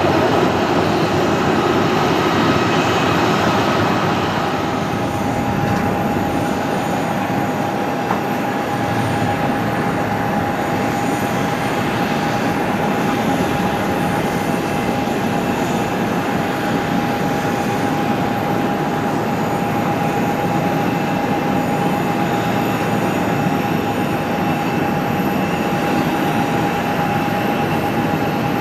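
Jet engines of a Boeing C-32A (military Boeing 757-200) with Pratt & Whitney PW2040 turbofans, running as the aircraft lines up and rolls for takeoff. A steady rushing noise with a constant whine that settles to one pitch about four seconds in.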